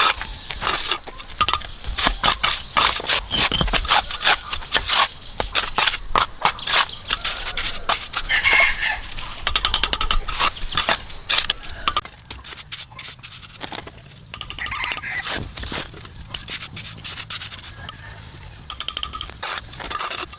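Irregular scraping and rubbing with many short knocks, busiest in the first half and sparser after about twelve seconds.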